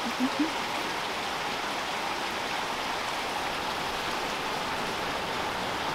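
Steady, even rush of flowing water from a spring-fed stream.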